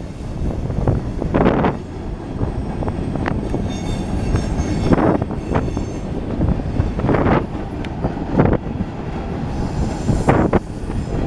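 Norfolk Southern freight train's cars rolling past at a grade crossing: a steady rumble of steel wheels on rail, with a clack of wheelsets over the joints every second or two.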